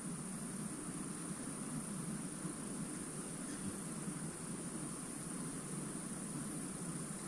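Crickets chirring steadily: one continuous high-pitched drone over a faint, even background hiss.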